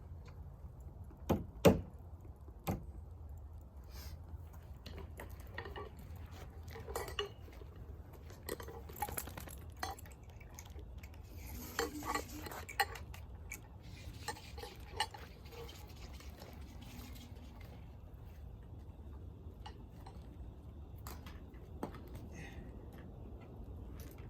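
Scattered light metallic clinks and taps as nails are handled and set on the stair stringers as spacers under a string line, with a couple of sharper knocks about a second and a half in, over a steady low hum.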